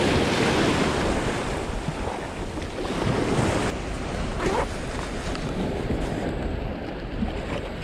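Sea waves breaking and washing over rocks and pebbles on a rocky shore, loudest at the start and easing off, with wind buffeting the microphone.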